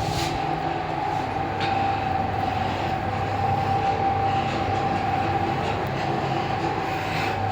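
Passenger lift car travelling upward between floors, heard from inside the car: a steady high whine over a low hum and rushing ride noise.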